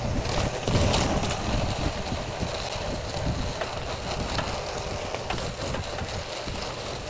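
Mountain bike rolling over a wet gravel track: steady tyre and drivetrain noise with scattered small clicks and rattles from stones and the bike, and wind noise on the microphone.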